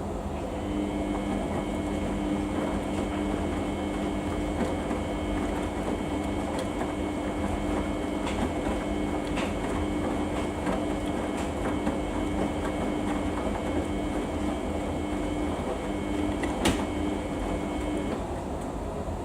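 Samsung washing machine running mid-cycle on a Daily 40 wash: a steady motor hum with a fainter high whine over a rushing noise. The hum starts just under a second in and stops about a second before the end, with a sharp click shortly before it stops.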